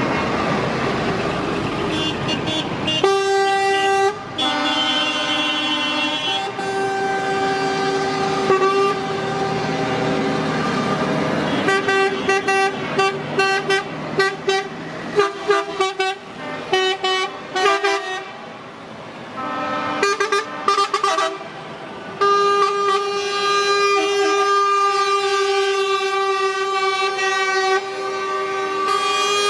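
Convoy of trucks driving past with engines running and horns sounding. About three seconds in the horns start: long held blasts, a stretch of many short toots in the middle, and one long blast near the end.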